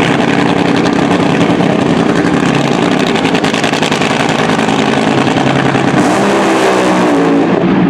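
Car engine running loudly and steadily, its pitch wavering a little near the end.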